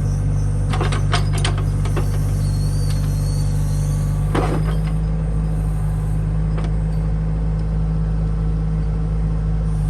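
Heavy diesel engine of an excavator running steadily, with a few sharp metal clanks about a second in and again near the middle.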